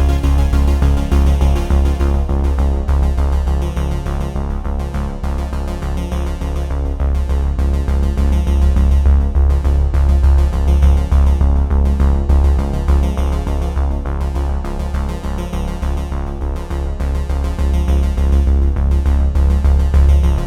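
Background music: a synthesizer and keyboard track with a strong, steady bass.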